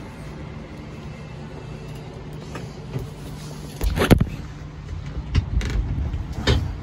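Steady low hum inside a Jeep CJ7's cab, then several loud, uneven knocks and bumps from about four seconds in, as the recording camera is handled and covered.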